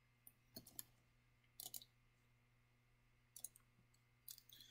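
Faint, scattered clicks of a computer mouse and keyboard, about half a dozen short taps spread over a near-silent room.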